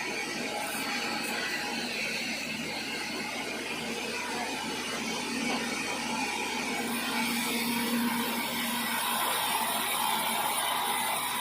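Sawmill saw running steadily as it cuts through an acacia log, a continuous machine drone with a steady low hum.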